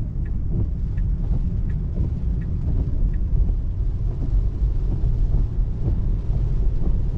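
Steady low road rumble inside the cabin of a 2024 Tesla Model 3 driving on wet, rain-soaked roads, with no engine note since the car is electric. A faint light ticking, about every 0.7 seconds, fades out about three seconds in.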